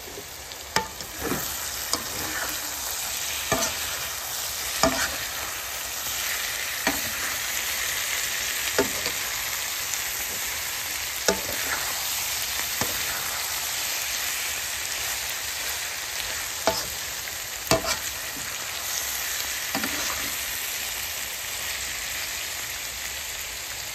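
Potato and cauliflower pieces sizzling as they are stir-fried in a pan, with a steady hiss. A metal spatula knocks and scrapes against the pan at irregular intervals, every one to three seconds.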